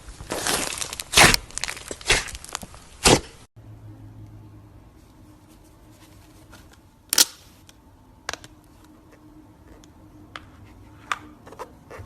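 Slime being crushed and squeezed by hand, with dense crackling and popping for about the first three and a half seconds. It then turns much quieter, with scattered soft clicks and pops, one louder snap about seven seconds in.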